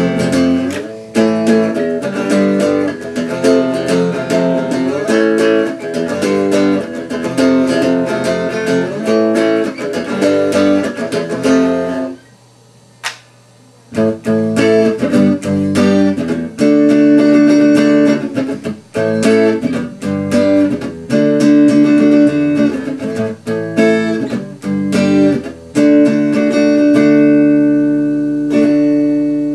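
Fender Stratocaster electric guitar being strummed and picked. About twelve seconds in the playing stops for about two seconds, then resumes, and near the end a chord is left to ring.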